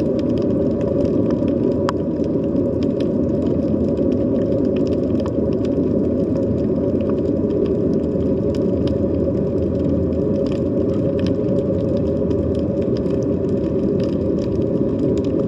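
Underwater sea ambience: a steady low rumble with faint scattered clicks and crackles above it.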